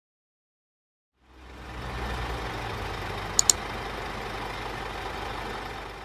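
Fire engine's diesel engine idling steadily, fading in about a second in. Two sharp clicks in quick succession a little past halfway.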